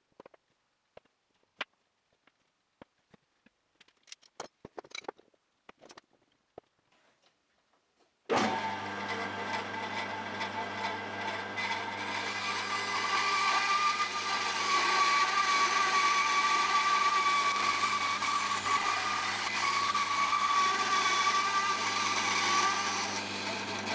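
Light clicks and taps of small wooden strips being handled and pressed together, then from about eight seconds in a bandsaw running steadily, its blade cutting a curve through a glued-up block of laminated hardwood strips, with a steady whine through most of the cut.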